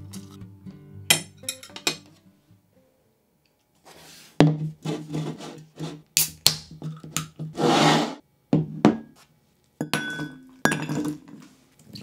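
Clicks and knocks of a pull-tab drink can being handled and snapped open about halfway through, with a short rush of noise, then ice cubes clinking in a glass mug near the end. Soft background music plays briefly at the start.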